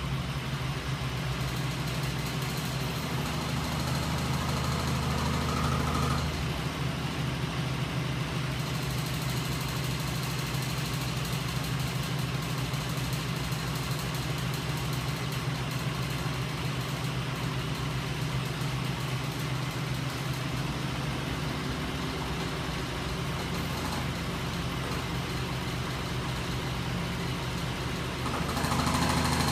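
Homemade magnet-motor test rig running: its DC motors and flywheels give a steady motor hum and mechanical whir. A higher tone drops out about six seconds in, and the sound grows louder just before the end.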